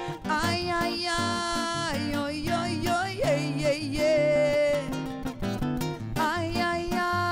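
A woman singing a samba, holding long notes with vibrato, over a nylon-string classical guitar accompaniment.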